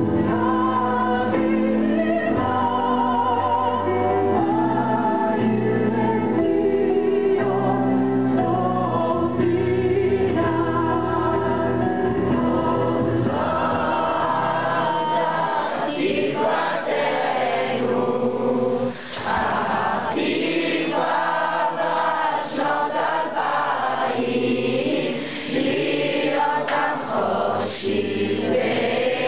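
A crowd of young people singing together. Under the first half there is a steady low accompaniment, which drops out about halfway, leaving the voices on their own and more ragged.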